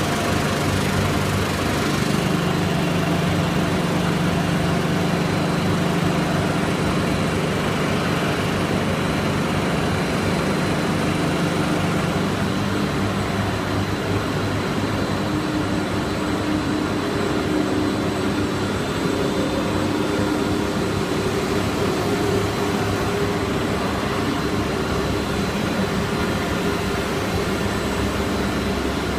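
Snack pellet extrusion production line machinery running: a steady mechanical hum with several held tones, which shift a little partway through.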